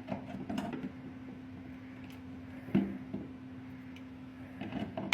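A few light clicks and knocks, the sharpest about three seconds in and a small cluster near the end, over a steady low hum.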